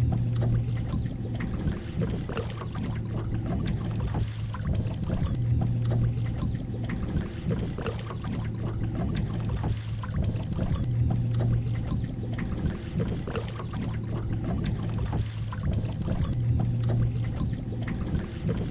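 Small electric outboard motor running with a low steady hum, swelling every few seconds, as a small fishing boat moves across the water, with water splashing and lapping against the hull.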